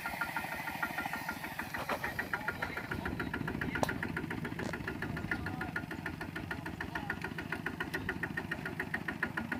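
Kubota RT120 single-cylinder diesel engine on a two-wheel walking tractor, chugging steadily under load with a fast, even putter as the tractor drives its mud-caked wheels through a flooded field.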